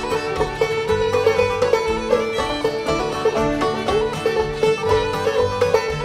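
Background music: an upbeat bluegrass-style tune led by a rapidly picked banjo.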